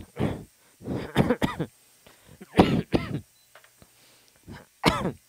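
A man coughing in a fit, five or six coughs with throat clearing between them.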